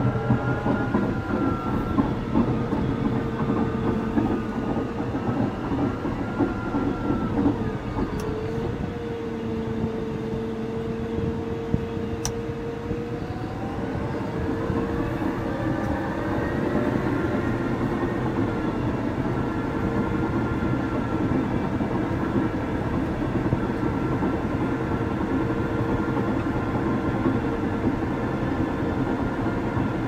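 Caterpillar D6 bulldozer's diesel engine running under load with a whistle, over the clanking of its steel tracks as it pushes across landfill trash. The engine note dips about eight seconds in and climbs again a few seconds later.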